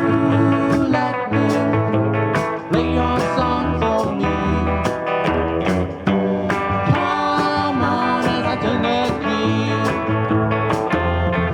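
A live blues band playing an instrumental guitar break over a steady beat, with bending, sliding guitar notes.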